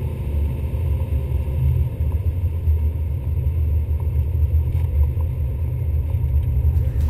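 Dodge Viper GTS's V10 engine running low and steady, heard from inside the cabin.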